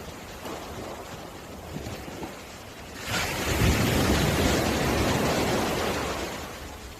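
Sea waves on a beach: a steady surf hiss, then a wave breaks suddenly about three seconds in and washes up the shore, fading away near the end.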